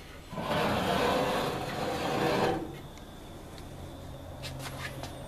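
Metal drawer sliding open on its runners under a workbench, a steady scraping rub lasting about two seconds, followed by a few light clicks near the end.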